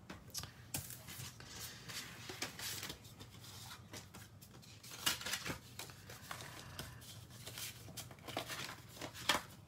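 Paper tags and craft pieces handled on a work table: quiet rustling with scattered small taps and clicks.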